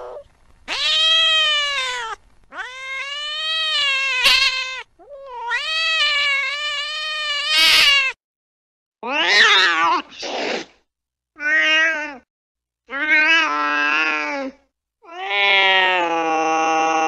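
A cat meowing over and over: about seven long, drawn-out yowls, each one to three seconds long with short gaps between. A few of the middle calls are shorter and waver in pitch.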